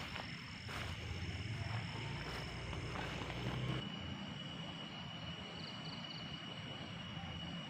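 Insects droning with a steady high-pitched tone. Under it runs a low rumble that cuts off abruptly about four seconds in, after which the drone sits a little lower in pitch.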